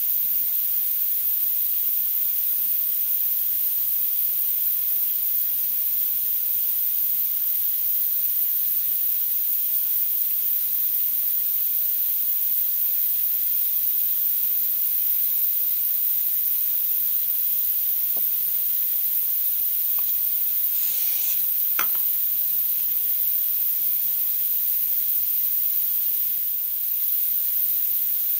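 Steady high-pitched hiss that does not change, with a few faint clicks and a short rustle about three quarters of the way through.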